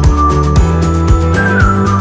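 Background music with a steady drum beat and a moving bass line.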